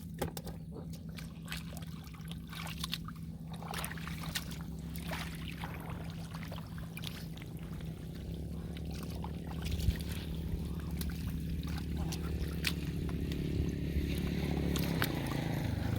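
Hands groping and splashing in muddy rice-field water, with scattered squelches and trickles, over a steady low hum.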